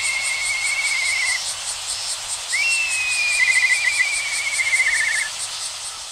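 A songbird sings two phrases, each a short high note followed by a long trill that falls slightly in pitch. Under it, an insect keeps up a steady high pulsing buzz of about five pulses a second.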